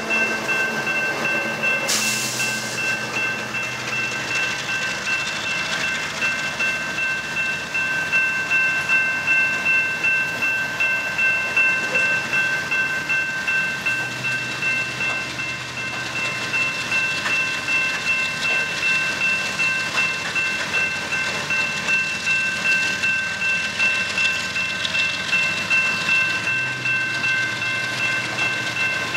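Freight train rolling past a grade crossing: BNSF diesel locomotives go by at the start, then coal hopper cars with a rhythmic clatter of wheels on the rails. The crossing's warning bell rings steadily over it.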